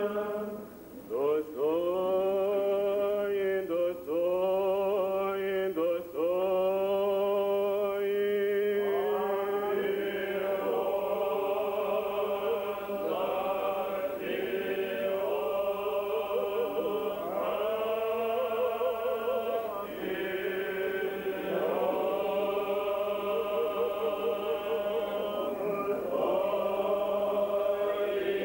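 Old Believer church choir singing a slow liturgical chant in sustained, held notes. Brief breaks between phrases come in the first several seconds, then the singing runs on.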